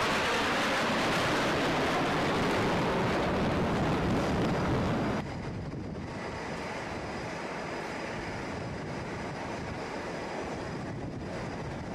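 Jet aircraft passing by, a loud rushing noise with wind on the microphone that falls in pitch as they pass. About five seconds in it cuts off abruptly, leaving a quieter steady wind noise.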